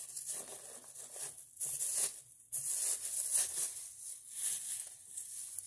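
Fireplace poker prodding a pile of unburnt catalog paper in a fireplace insert: paper rustling and crinkling in uneven spurts, with a brief pause about two seconds in.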